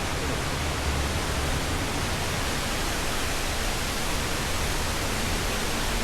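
Waterfall's water rushing in a steady, even roar, with no change in level.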